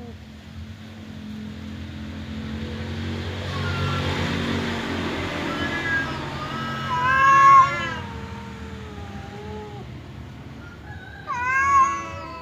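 Domestic cats in an aggressive standoff: a low, drawn-out growl, then two loud wavering yowls, one about seven seconds in and one near the end.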